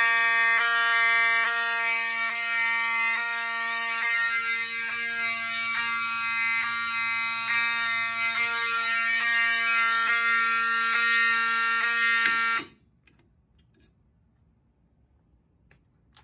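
Fire alarm horns sounding together in a loud, steady buzzing blare with a regular stutter about twice a second, set off by a pulled manual pull station. They cut off suddenly about twelve and a half seconds in.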